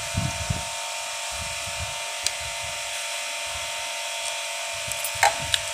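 A screwdriver working small screws out of a Cornelius soda valve's plastic body by hand, with scraping and handling sounds and a few sharp clicks near the end. A steady hiss and hum lies underneath.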